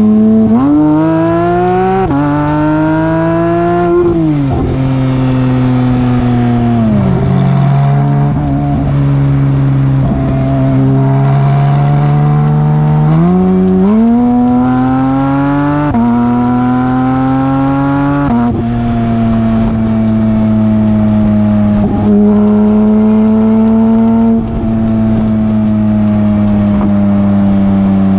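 Porsche 992 GT3 RS's naturally aspirated flat-six, breathing through a full Dundon Motorsports Inconel exhaust (street headers, side mufflers, mini crack pipe), accelerating hard. Its pitch climbs and drops back at upshifts about two and four seconds in, then eases off and holds steady. It accelerates again near halfway, with upshifts around sixteen and eighteen seconds, and settles into a steady cruise.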